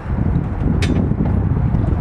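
Wind buffeting the microphone, a loud low rumble, with one sharp click about a second in.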